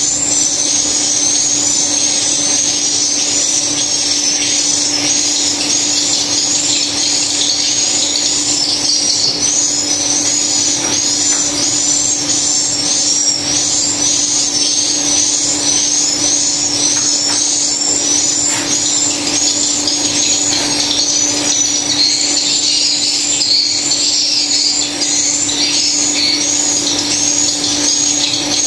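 Swiftlet calls: a fast, continuous run of high chirps repeating in an even pattern, over a steady low hum.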